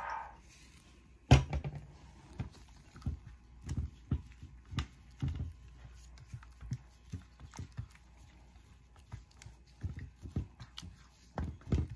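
Silicone spatula stirring and spreading a wet garlic-and-pepper marinade in a glass baking dish: irregular soft squelches and taps against the glass. One sharp knock about a second in is the loudest sound.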